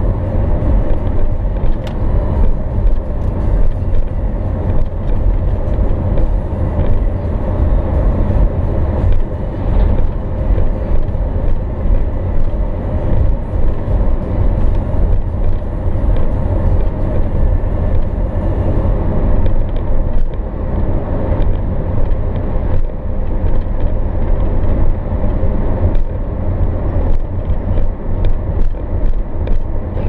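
Car cruising at highway speed, heard from inside the cabin: a steady, loud low rumble of tyres on the road and engine.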